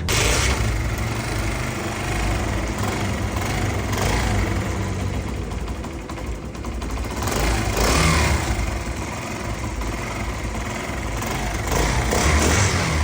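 Motorcycle engine kick-started and running, blipped to higher revs a few times, now without its earlier noise after a harder tensioner spring has been fitted.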